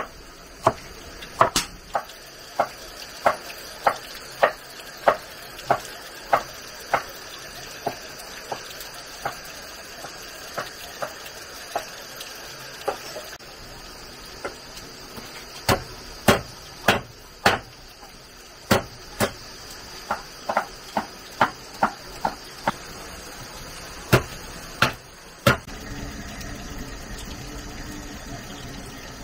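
A cleaver chopping a green vegetable on a thick wooden chopping block: sharp knocks about one and a half a second, a short pause, then a second run of less even knocks. After about 26 s the chopping stops and a steady low simmering noise from a pan over a wood fire takes over.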